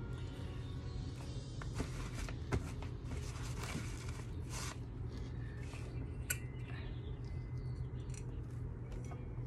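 Handling noise as a painted canvas is tilted by gloved hands on a paper-covered table: a few short scrapes and rustles in the first half and one sharp tick a little past the middle, over a steady low hum.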